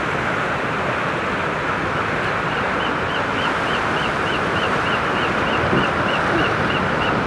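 Ocean surf washing and breaking against rocks as a steady roar. From about two seconds in, a faint high chirp repeats evenly about three times a second.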